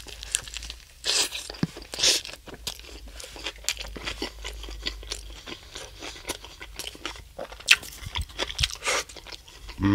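A person chewing a mouthful of pita wrap filled with chicken, lettuce, cucumber and tzatziki, with crunching and wet mouth clicks. There are louder smacks about one and two seconds in.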